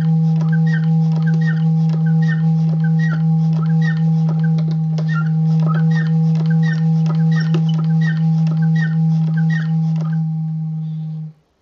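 A single pipe of a home-built busker barrel organ sounding its first note: one steady pipe tone held for about eleven seconds, then cutting off suddenly near the end. A light regular clicking, about two a second, runs under the note.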